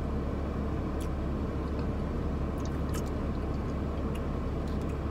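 Steady low hum of a car cabin, with a few faint light clicks.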